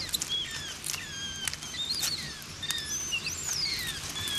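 Birds calling with short high whistled chirps, several a second, some falling and some rising in pitch, over a steady hiss, with scattered sharp clicks.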